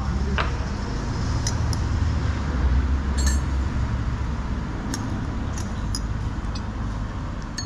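A metal teaspoon clinks lightly against china a few times as sugar is spooned into a cup of tea and stirred, over a steady low rumble.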